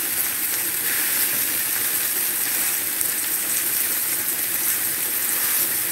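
Breaded country-fried steaks sizzling steadily in hot oil in a skillet.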